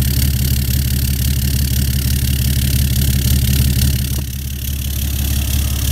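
Vehicle engine idling steadily, heard close up at the exhaust tailpipe, with an even low throb from the exhaust. It is running on a freshly replaced air filter and sounds a lot healthier. A small click about four seconds in.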